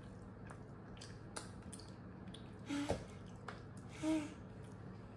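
Baby giving two short, breathy laughs, about three seconds in and again about a second later, among faint small clicks.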